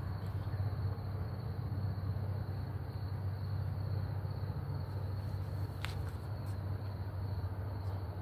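Steady low rumble with a faint, continuous high insect-like trill above it, and a single sharp click about six seconds in.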